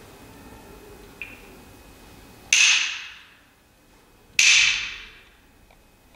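Two sharp claps of a pair of wooden clappers struck together, about two seconds apart, each with a brief ringing decay. This is the signal that closes a zazen sitting.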